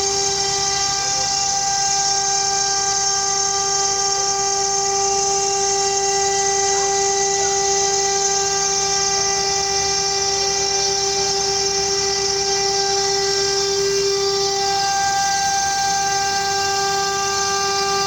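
CNC machine running with a steady, high-pitched whine that holds without a break, its tone shifting slightly near the end.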